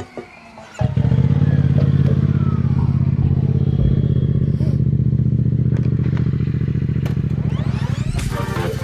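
CFMOTO 450SRS's parallel-twin engine comes in suddenly about a second in and runs at a steady, even pitch, with fine regular firing pulses. Music comes back in near the end.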